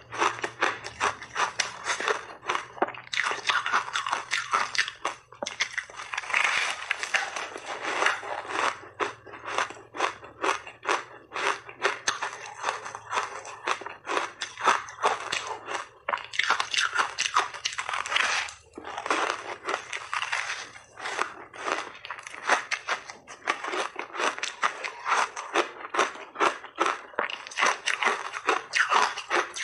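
Close-miked crunching and chewing of frozen layered ice: a dense, rapid run of crisp cracks as mouthfuls of hard ice are crushed between the teeth.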